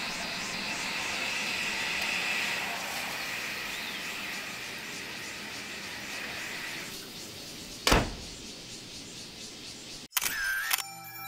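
A cabin door slams shut once about eight seconds in, over a steady high-pitched outdoor drone that fades out shortly before. Near the end a brief ringing chime sounds as outro music begins.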